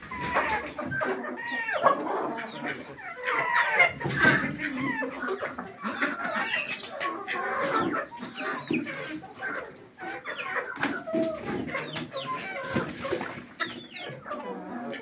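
A flock of domestic chickens clucking and calling in a coop, with many overlapping short calls and scattered sharp clicks.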